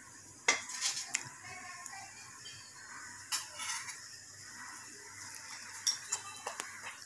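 A metal spoon stirring batter in a glass bowl, scraping and clinking against the glass in scattered knocks, the loudest about half a second in.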